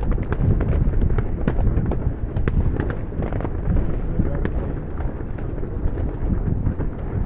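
Many fireworks and firecrackers going off at once: a continuous rumble of bangs with frequent sharp cracks, none standing out above the rest.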